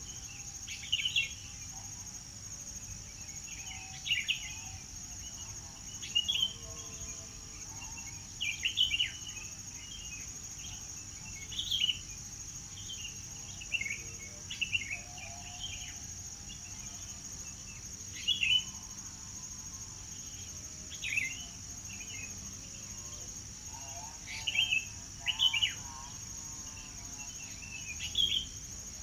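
Songbirds giving short, sharp chirps every second or two over a steady high-pitched insect drone.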